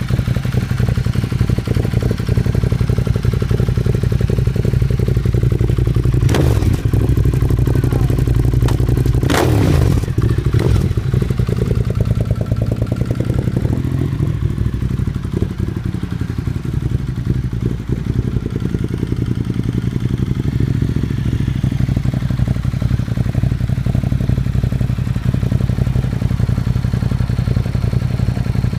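Ducati Monster 1200S's 1198 cc L-twin engine idling through an open Termignoni slip-on exhaust with its dB killers removed. A quick throttle blip about six seconds in and two more around ten seconds in send the pitch up and back down.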